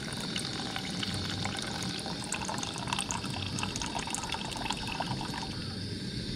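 Milk poured in a thin stream into an aluminium pot of tea on a gas burner, splashing and crackling into the liquid; the pour stops near the end.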